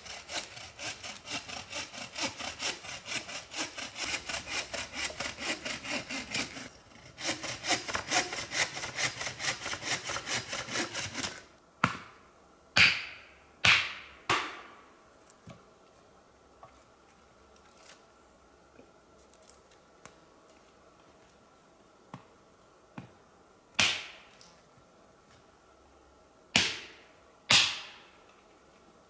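Hand saw cutting through wood in quick, even strokes, with a short pause partway through; the sawing stops about eleven seconds in. After it come loud, sharp wooden knocks or cracks, each dying away quickly: four close together, then three more spread out near the end.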